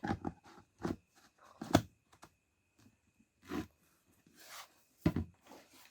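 Short plastic clicks and knocks from handling a handheld steam vaporizer as its lid is fitted and its cord plugged in, the loudest about two seconds in and near the end, with a softer rustle in between.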